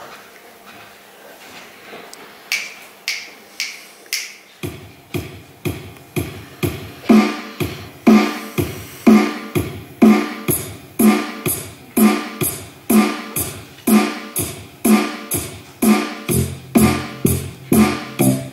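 Electronic music: a few sparse high clicks, then about four seconds in a steady pulse of pitched electronic hits begins, about two a second, each dying away quickly. A low bass tone joins near the end.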